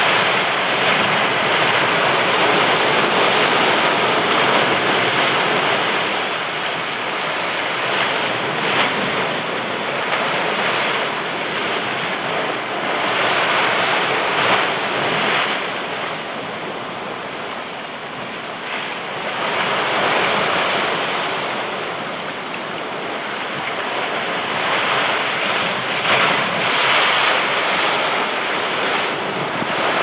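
Sea waves breaking on rocks and washing back through them: a continuous rushing surf that swells and ebbs every few seconds, with several louder crashes.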